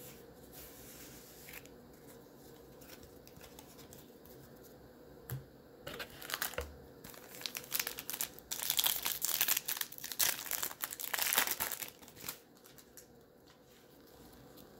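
Baseball card pack wrapper being torn open and crinkled by hand: a run of crinkling rustles starting about six seconds in, loudest in the middle, and stopping a couple of seconds before the end.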